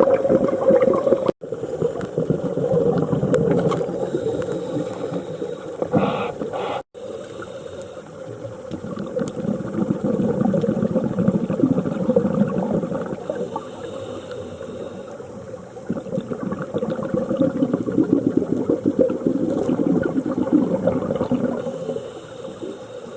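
Scuba diver breathing underwater through a regulator: exhaled air bubbling out in long surges every few seconds, with quieter stretches between for the inhalation. The sound drops out for an instant twice.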